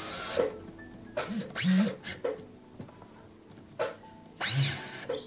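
Rotary handpiece spinning a small burr that cuts into a silver claw setting in three short bursts of grinding, the pitch sliding briefly as the tool speeds up and slows down.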